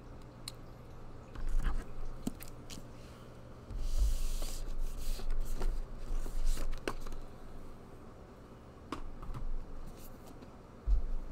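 A large hardcover omnibus being handled on a table: scattered taps and clicks, a few dull knocks as it is moved, and a short rustle of its paper dust jacket sliding about four seconds in.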